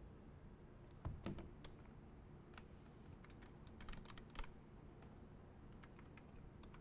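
Faint, irregular typing and clicks on a computer keyboard, with a few louder clicks about a second in and around four seconds in.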